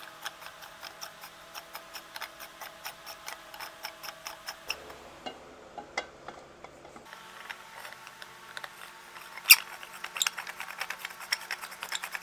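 Fairly regular clicking and ticking, about three clicks a second, as threaded lamp post sections are screwed together by hand, with a short lull in the middle and one sharper click about nine and a half seconds in.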